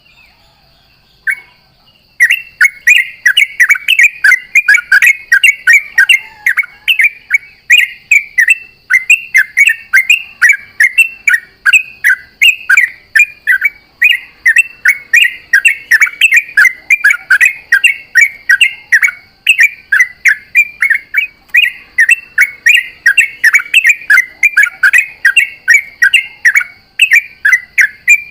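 Yellow-vented bulbul (trucukan) singing a long, unbroken run of quick bubbly notes, about three or four a second, starting about two seconds in.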